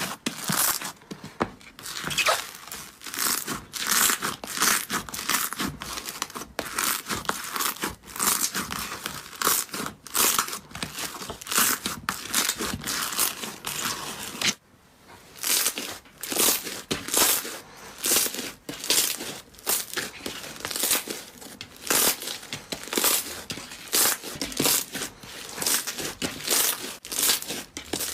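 Slime being pressed and kneaded by hand, making a run of short, crisp sounds about one or two a second, with a brief pause about halfway through.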